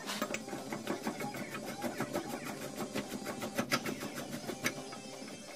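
Quick, uneven clicking and rattling of hands handling a hose fitting and valve at the top of a disposable gas cylinder in its metal holder, several clicks a second.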